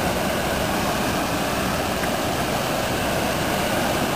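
Steady rushing of swollen floodwater, a continuous even wash of noise.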